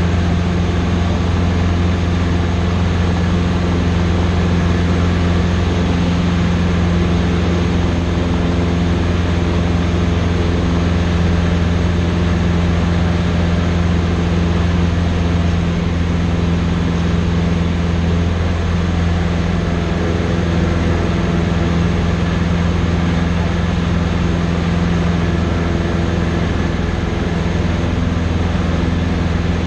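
Cessna 150's Continental O-200 four-cylinder engine and propeller running steadily in flight, heard inside the cabin as a constant low hum.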